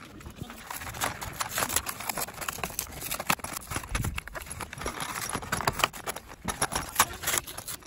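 Plastic blister pack and its cardboard backing being peeled and torn open by hand: a run of irregular crackles and sharp clicks.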